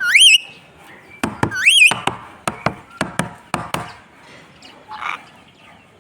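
Indian ringneck parrot giving two short whistled calls that waver and rise in pitch, one at the start and one about a second and a half in. Between and after the calls come a series of sharp taps or clicks, which die away about two-thirds of the way through.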